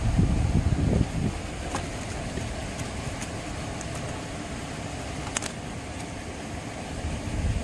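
Wind rumbling on the microphone, gusting hardest in the first second and then settling to a steady low rumble, with a couple of faint clicks.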